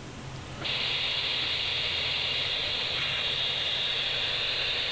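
Steady receiver hiss from a Kenwood TM-261A 2 m FM mobile radio's speaker, switching on abruptly about half a second in as the squelch is opened, the receiver working again after its diode was replaced.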